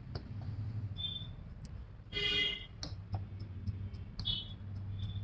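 Low steady hum with a few short, high-pitched squeaks and faint clicks; the loudest squeak comes a little past the middle.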